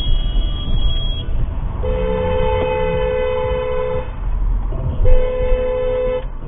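Car horn honking twice, a two-note blast of about two seconds and then a shorter one of about a second, over low road and engine rumble.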